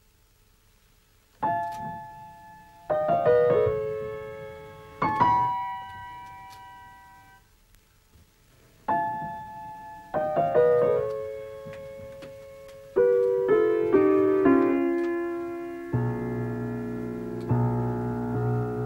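Solo piano played slowly: chords struck one at a time and left to ring and die away, in short phrases with pauses between. Near the end a few notes step downward into a low chord that is held.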